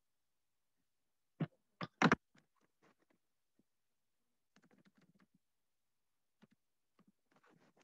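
Three sharp knocks in quick succession about a second and a half in, followed by scattered faint clicks and rustles.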